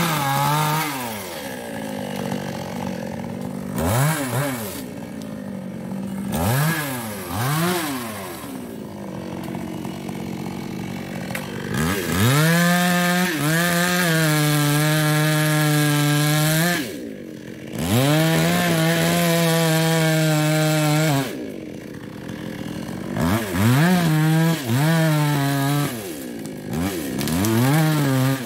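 Small two-stroke chainsaw, a New West 628, cutting into a sengon trunk: the engine revs up and drops back in several short blips, then runs at full throttle for two long stretches of about four to five seconds each in the middle, then revs in quick bursts again near the end.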